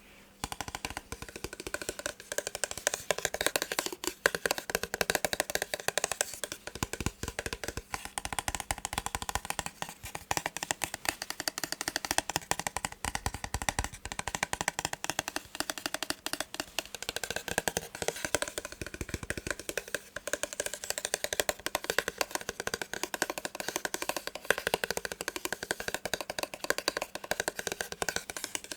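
Fast, dense tapping on a massage gun, many quick light taps a second in a continuous patter.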